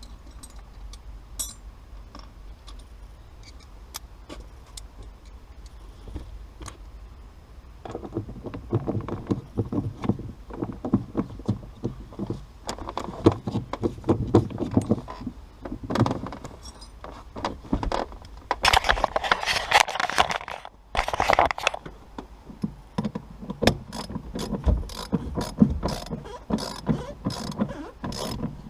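Hand tools at work on metal: scattered clinks and clatter, then a quick run of ratchet-wrench clicks as bolts are turned. The first few seconds are quieter.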